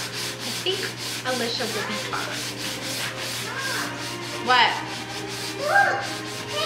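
A sponge and a rag rubbing wood stain into a wooden wagon bed in repeated short scraping strokes. There are a few brief high squeaks, the loudest about four and a half and six seconds in, over a steady low hum.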